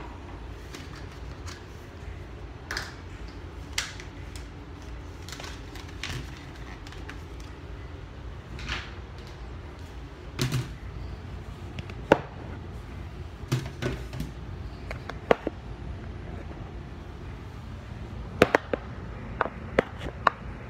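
Scattered clicks and knocks of toiletry containers being handled and set down on a counter at close range, a few sharper ones in the second half, over a steady low hum.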